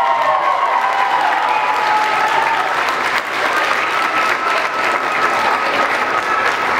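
Audience applauding: dense, steady hand-clapping from a large crowd.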